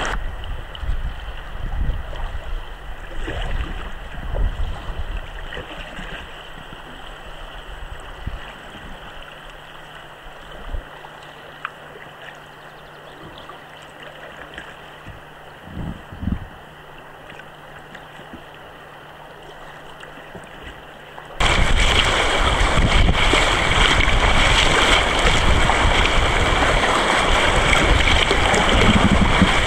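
River water lapping and flowing quietly around a raft at water level, with a faint steady hum. About two-thirds of the way through it switches suddenly to loud rushing, splashing rapid water breaking right at the microphone.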